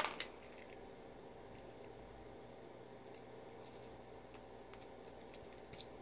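Faint scraping of a handheld coax stripping tool being turned around RG6 coaxial cable as it cuts the jacket, with a few light clicks about three and a half seconds in, over a low room hum.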